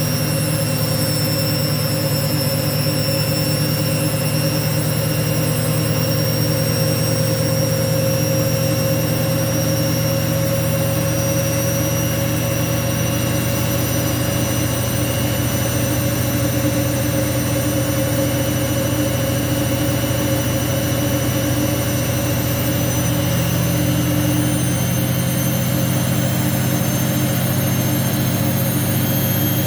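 Hoover washing machine running with a steady loud hum and a high motor whine that slowly creeps up in pitch.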